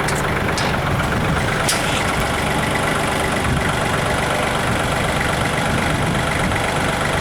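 Kubota L3800 tractor's three-cylinder diesel engine idling steadily, with a few light clicks in the first couple of seconds.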